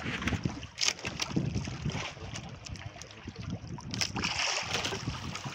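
Wind buffeting the microphone and sea noise aboard a small outrigger boat, with a couple of short knocks about a second in and near four seconds.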